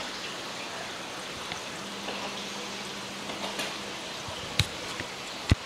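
Steady hiss of aquarium water and air bubbling in the tanks. Two short knocks near the end, the second louder.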